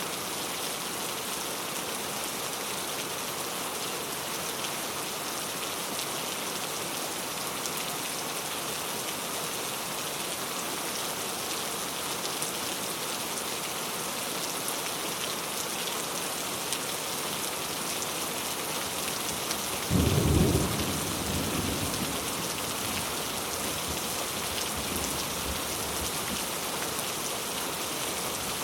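Heavy rain falling steadily and loudly on surfaces. About two-thirds of the way in, a sudden clap of thunder breaks in low and loud, then rumbles away over a couple of seconds.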